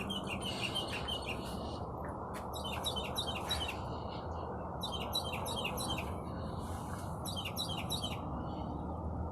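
Small birds chirping in quick runs of short, high notes, several bursts separated by brief pauses, over a steady low background noise.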